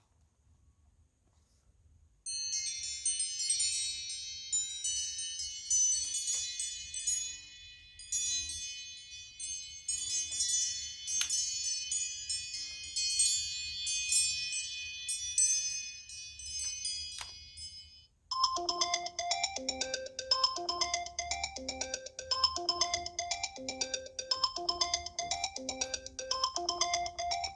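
iPhone 11 Pro ringtones playing one after another: after a short silence, a high, bell-like chiming tune plays for about sixteen seconds, then a second ringtone with a lower, repeating melody begins.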